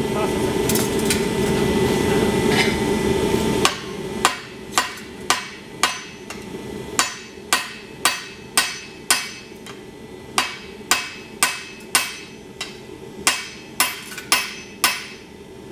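Hand hammer striking red-hot steel held on an anvil, about two blows a second in runs of four or five with short pauses, each blow ringing briefly. A steady rushing noise fills the first few seconds and stops as the hammering starts.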